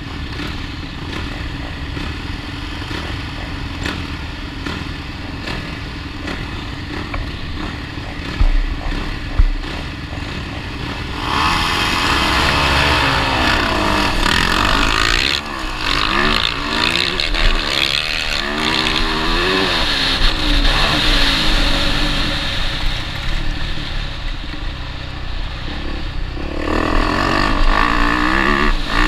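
Motocross bike engines idling together at the start line, with two sharp knocks a little before the launch; about eleven seconds in they rev hard as the bikes take off. The onboard bike's engine then rises and falls in pitch again and again as it accelerates and shifts through the gears up the track.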